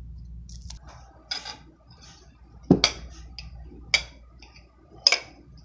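Metal table knife clinking and scraping against a ceramic plate: a few sharp clinks about a second apart, the loudest a little under three seconds in.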